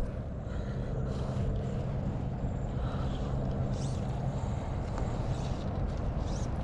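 Steady rushing noise of river water and wind on the microphone, with a faint low hum through the first few seconds.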